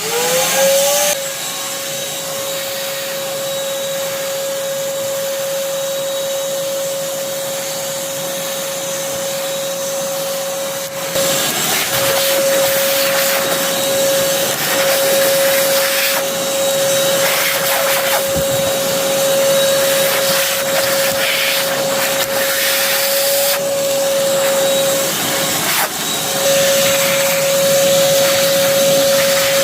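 Shop vacuum starting up: its motor spins up within the first second to a steady whine over a rush of air. From about eleven seconds in the sound thickens and varies as it works.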